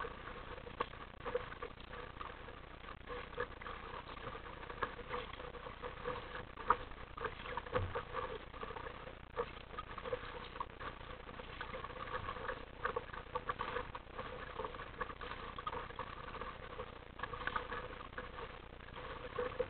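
Sea water slapping and splashing against the plastic hull of an RTM Mambo sit-on-top kayak under way: a steady run of small, irregular slaps and patters.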